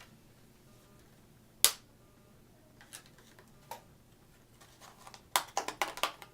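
Plastic packaging of new laptop RAM modules clicking as it is handled and pried open to free the memory: one sharp click about a second and a half in, a couple of faint ticks, then a quick run of clicks near the end.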